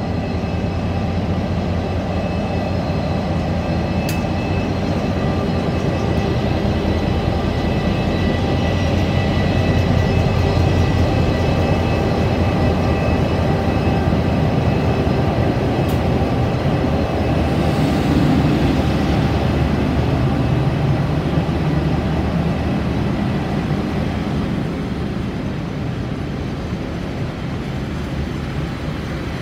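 KiwiRail DFB-class diesel-electric locomotive's engine running steadily, growing louder to a peak around the middle and fading in the last few seconds, with a couple of sharp clicks along the way.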